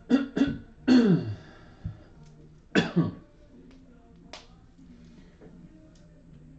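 A person's voice making a few short throat sounds, in two clusters about two seconds apart, each dropping in pitch; a single short click follows.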